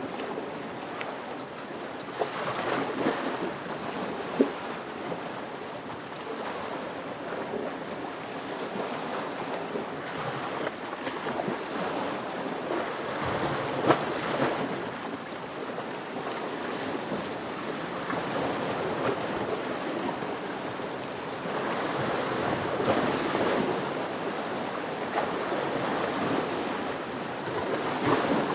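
Ocean waves washing in continuously, swelling and easing every several seconds, with a few sharp splashes.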